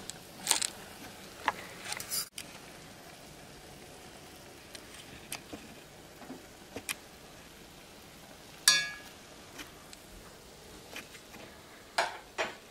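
A metal fork clinks against a cooking pot and other utensils: scattered sharp clicks over a steady low hiss. The loudest is a ringing clink about nine seconds in.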